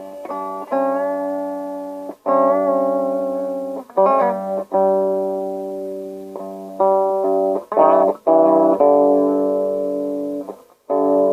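Guitar playing slow melodic phrases in G Lydian, tuned down about a whole step: plucked single notes and double-stops left to ring out, some with vibrato.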